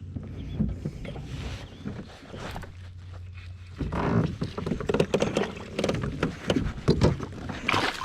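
Knocks, thumps and rattles of gear being handled in a kayak, coming thick and loud from about four seconds in. A steady low hum underneath stops at that moment.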